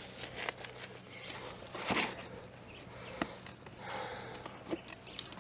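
Gloved hands handling plastic epoxy jugs and their caps: soft rustling with a few light clicks and knocks.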